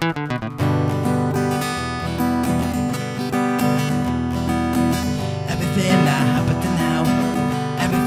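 Acoustic guitar strummed in chords at a steady rhythm.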